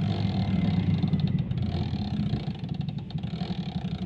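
Motorcycle engine running steadily with rapid, even firing pulses. It is a little louder over the first second or so.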